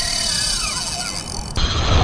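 Wind buffeting the microphone with a faint wavering whine, cut off abruptly about one and a half seconds in by a louder, steady rush of wind noise.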